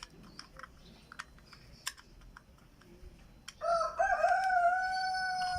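Faint plastic clicks from handling the remote, then, about three and a half seconds in, a wireless bird door chime goes off. It plays one loud, long, held call like a rooster's crow.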